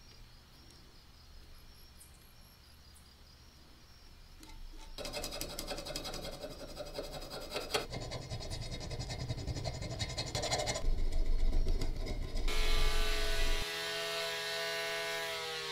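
A metal file rasping back and forth over a soldered repair on cast iron, with quick uneven strokes. Near the end a flexible-shaft rotary tool takes over, running with a steady whine as it grinds the cast iron.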